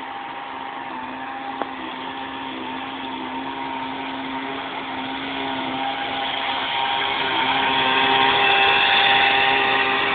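Two-stroke weedeater engine in a homemade RC boat running steadily with a high buzz. It grows louder over the second half, and there is a short click about one and a half seconds in.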